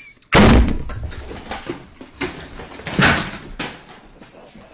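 A loud slam-like impact about a third of a second in, then a few softer knocks and rustles, and a second loud strike about three seconds in.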